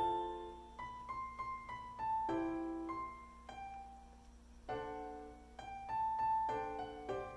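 Background piano music: a slow melody of single struck notes over chords, each note left to ring and fade.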